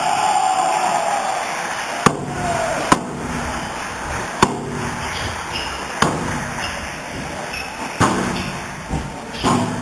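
Squash rally: the ball is struck with rackets and cracks off the court walls in sharp knocks, six of them spaced one to two seconds apart, over a steady background of hall noise.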